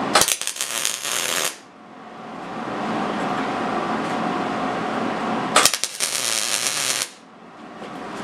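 Two short electric arc tack welds joining the steel tines of a fire poker, each a sharp crackle lasting about a second and a half, the first right at the start and the second about five and a half seconds in, over a steady shop hum.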